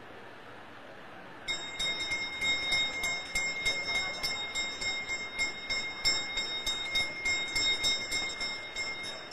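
Puja hand bell (ghanta) rung continuously, starting about a second and a half in, its clapper striking at a quick, even rate of about four strokes a second with a steady high ring. Before that there is only a faint hiss.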